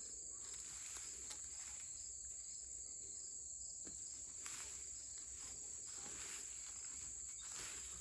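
A steady high-pitched insect chorus, with faint rustling of hands feeling through wood-chip mulch and soil.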